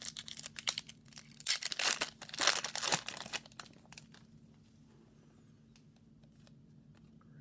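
Foil wrapper of a hockey card pack being torn open and crinkled, a crackly rustle for about the first three seconds. After that, only a few faint clicks as the cards are handled.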